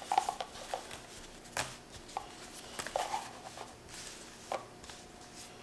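Wax-wrapped packs of baseball cards being pushed together and squared into stacks: scattered light taps and soft rustling of the wax-paper wrappers.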